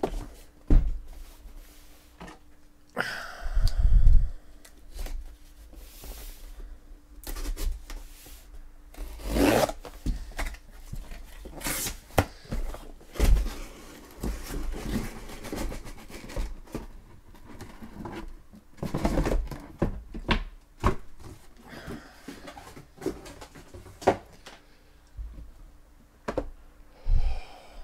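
Cardboard boxes being handled and moved: irregular rubbing, scraping and rustling with several louder knocks, over a faint steady hum.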